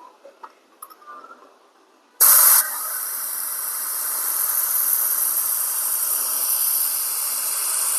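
Air hissing out of a motorcycle tire as it is deflated through its Schrader valve: a sudden loud burst about two seconds in, then a steady hiss. A few light clicks come before it.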